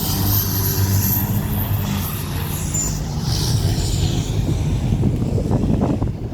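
A river tour boat's engine running with a steady low hum, mixed with water and wind noise. The hum is strongest in the first two seconds, then the rumble turns rougher, with a few short knocks near the end.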